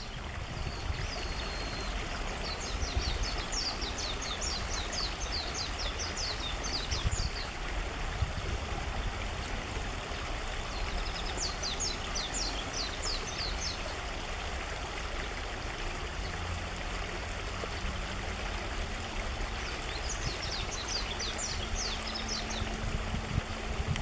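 Japanese white-eye singing: three long phrases of rapid, high twittering notes, each lasting a few seconds, with a few short notes just before the first.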